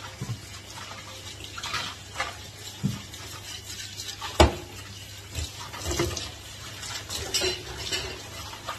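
Knocks and clatter of a plastic mesh basket and a brush against a stainless steel kitchen sink as it is cleaned, with one sharp knock about four and a half seconds in and a little water. A low steady hum runs underneath.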